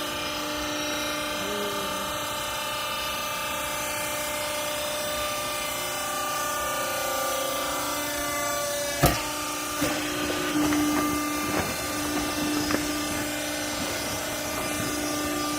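Clothes rag baler's motor running with a steady hum. There is one sharp bang about nine seconds in, followed by a few lighter knocks.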